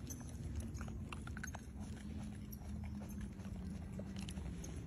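Macaques handling and chewing banana peel: scattered soft clicks and rustles over a steady low hum.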